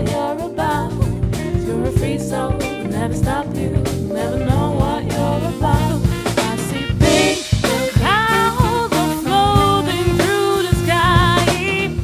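A live band playing an upbeat song: a drum kit keeps a steady beat under electric bass and a melody line that turns to longer held notes about halfway through.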